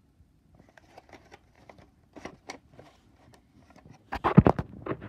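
A VHS tape case being handled and turned over in the hand: scattered light clicks and rustles, then a louder burst of rustling and knocking about four seconds in as the case is flipped to its back cover.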